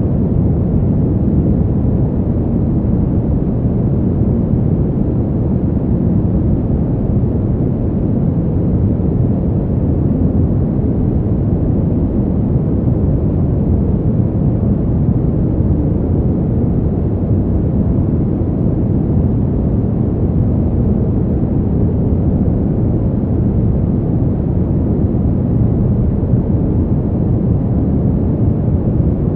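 Brown noise: a steady, deep, even rumble of random noise, strongest in the lows and with almost nothing in the highs, unchanging throughout.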